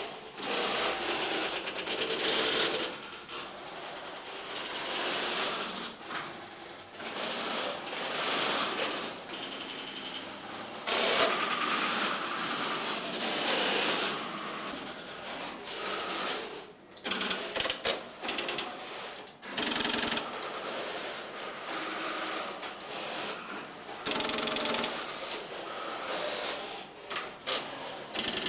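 Electromechanical relays and switches of a working Tesla P51 telephone exchange clattering continuously, a dense chatter of fine clicks that swells and thins as calls are switched.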